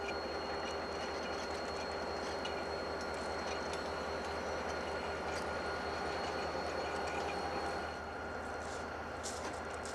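Diesel locomotive running as it rolls slowly with a string of flatcars: a steady engine drone with a few faint clicks from the wheels and cars.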